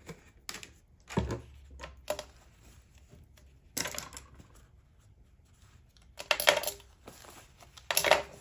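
Handling noises on a craft table: a paper towel rustling as the surface is wiped, and small tools (a pen and a craft knife) clicking and clattering as they are set down. The noises come in short separate bursts, with the loudest cluster about six seconds in and another near the end.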